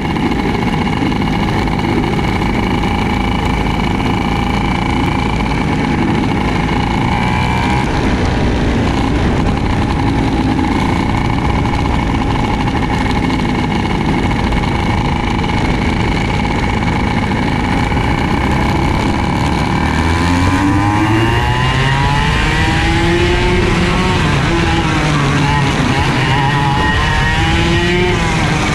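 IAME KA100 100cc two-stroke kart engine heard on board, with the other karts' engines around it. It holds a fairly steady pitch for about the first twenty seconds, then revs up and down repeatedly as the kart brakes and accelerates through the corners.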